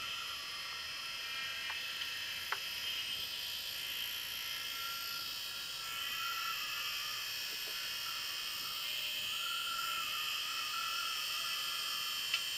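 Open hard drive spinning with its displaced heads dragging on the platters and scoring grooves into them: a steady scratchy hiss, with a light tick about two and a half seconds in and another near the end.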